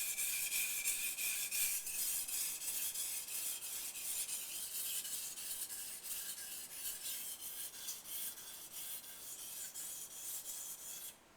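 Steel knife blade scraping back and forth across a 1000-grit whetstone in many quick, even sharpening strokes, with a faint ringing of the blade in the first couple of seconds; the strokes stop suddenly near the end.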